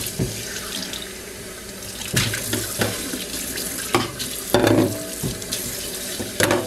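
Kitchen tap running into a stainless steel sink while hands rinse a raw Cornish hen under the stream: a steady rush of water with a few sharper splashes and knocks against the sink.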